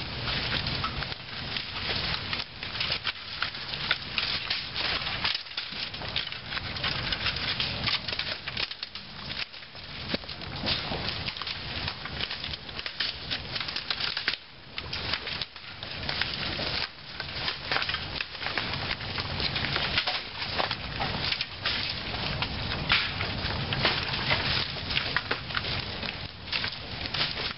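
Dry leaves, twigs and brush rustling, crunching and snapping as debris is gathered and piled by hand, with many irregular small clicks and pops.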